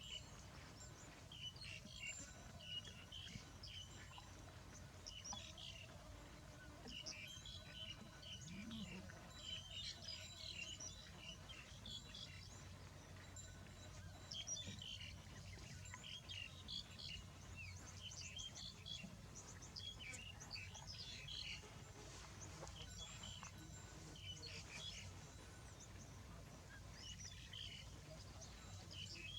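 Faint chirping and calling of several birds, many short notes scattered throughout, over a low steady background hum of outdoor noise.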